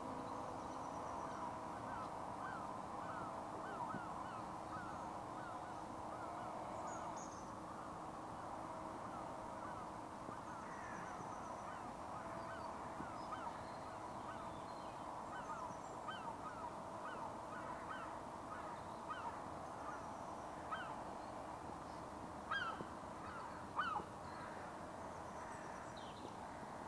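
Faint, steady whine of a small RC air boat's electric motor driving a toroidal propeller, its tone coming and going as it runs across the puddle, with many short bird chirps throughout.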